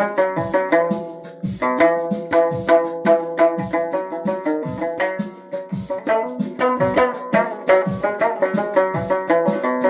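Instrumental music: melodic pitched instruments over a steady drum beat.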